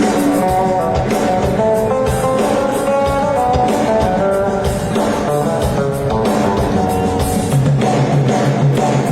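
Live band playing during a stage sound check: a stepping melodic line of held notes over a steady drum beat, with a low held note coming in near the end.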